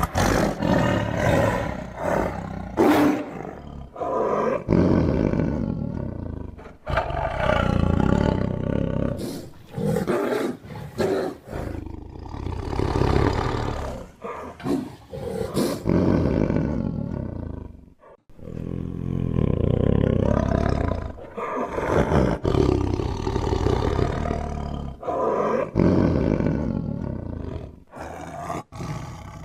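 Tiger roaring again and again: loud, deep calls lasting a second or two each, with short gaps between them.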